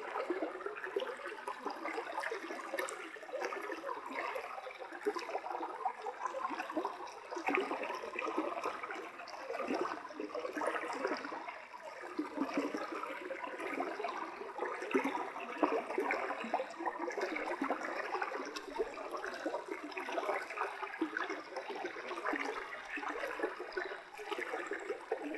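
A shallow stream running steadily, a constant trickling water sound without any low rumble.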